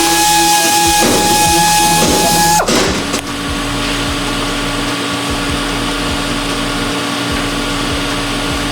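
A machine running with a steady whine that drops sharply in pitch and cuts out about two and a half seconds in, followed by a lower steady hum.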